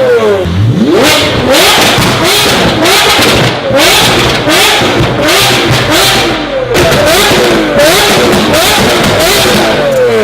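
A toy RC car's sound module playing a recorded supercar engine revving, rev after rev in quick rising and falling sweeps over a pulsing hiss, like a burnout sound effect.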